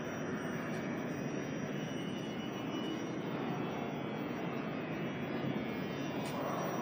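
A G subway train of R68-series cars pulling into the underground station, its wheels and motors making a steady rolling noise on the rails.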